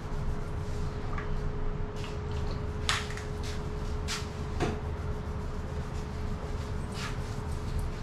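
Hair oil squirting and sputtering from a plastic squeeze bottle onto a scalp in a few short, sharp bursts, over the steady hum of ceiling fans.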